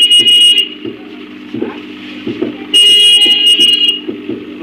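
Two loud blasts of a high-pitched electric horn: one ending about half a second in, the other lasting about a second from nearly three seconds in, over a steady low hum.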